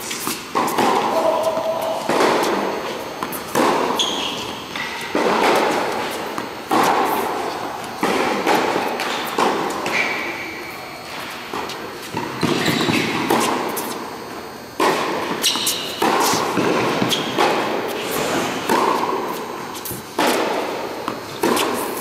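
Tennis groundstroke rally on a hard court: the racket strings pop against the ball and the ball bounces, a sharp impact about every second. Each hit echoes in a large indoor hall.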